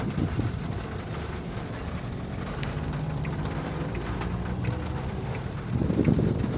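Heavy rain falling as a steady hiss. About six seconds in, wind starts buffeting the microphone.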